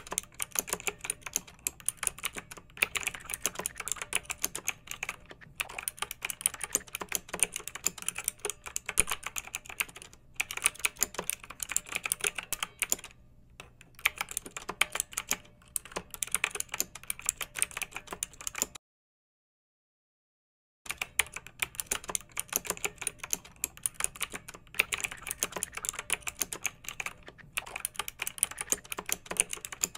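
Rapid clicks like typing on a keyboard, in runs broken by short pauses, with a dead-silent gap of about two seconds just after the middle.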